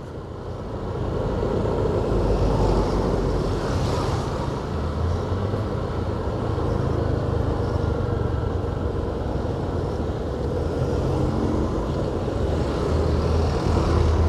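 Road traffic in slow, heavy congestion: car engines running with a steady low hum and road noise, getting a little louder about a second in.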